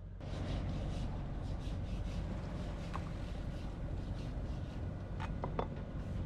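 A steady low drone with a rushing wash of noise aboard a sailboat under way, with a few short clicks a little after five seconds in.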